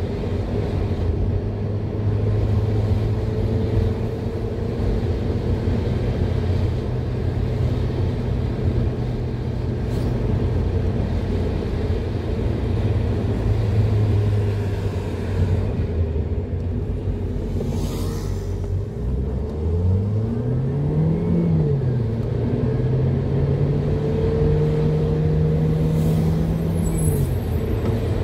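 Car engine and tyre noise heard from inside the car while driving at steady speed. About two-thirds of the way in, the engine revs up, drops back at a gear change, then pulls steadily again.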